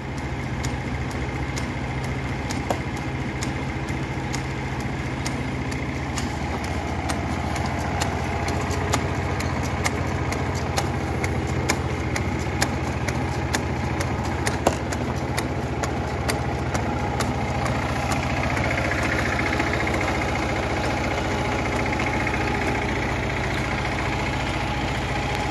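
Used rice transplanter's engine running steadily, with frequent light clicks over the drone.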